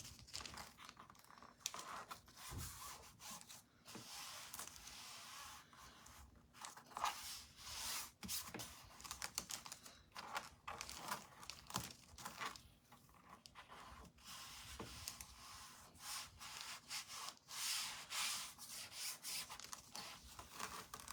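Faint, irregular rubbing and crinkling as hands smooth a sticky see-through plastic stencil sheet down onto a chalkboard to press out air bubbles.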